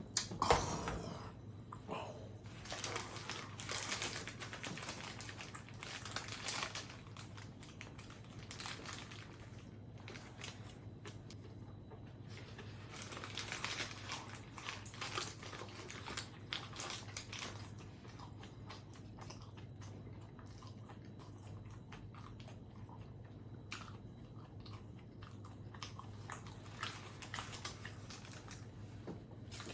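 A person biting and chewing crunchy fast food close to the microphone, with many short crisp crunches, the loudest just after the start. A faint steady low hum runs underneath.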